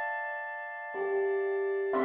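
A handbell ensemble playing slow music. A chord of handbells or handchimes rings on and fades, then a new lower note is struck about a second in and left to ring.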